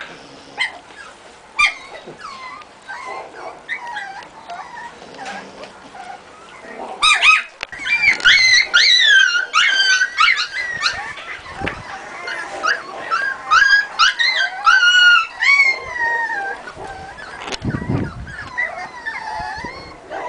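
Dogs yipping and whining in high-pitched calls that rise and fall. The calls are sparse in the first seconds, then come thick and fast for several seconds through the middle.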